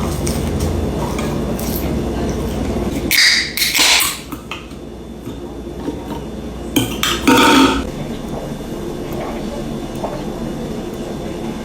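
Eating and food-handling noises with clinks like dishes or utensils, coming in two short loud clusters, about three seconds in and again about seven seconds in, over a low steady background hum that drops away after the first three seconds.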